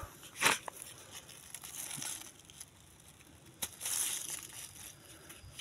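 Dry, withered cucumber leaves and vines rustling and crackling as a hand reaches in to pick a cucumber, with a loud burst of rustling about half a second in, a sharp click a little past three and a half seconds, and more rustling right after.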